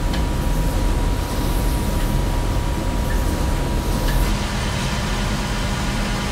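Flow-forming machine running: an aluminium wheel casting spins on the mandrel while rollers squeeze its rim barrel, giving a loud, steady industrial rumble and hiss with a faint steady whine. About four seconds in the sound shifts to a steadier low hum.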